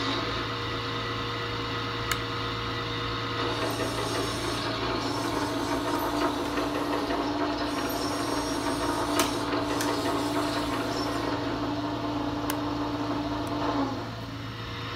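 Sound module of a hydraulic RC excavator playing its track sound: a steady mechanical running sound over a low engine hum, which cuts off suddenly near the end.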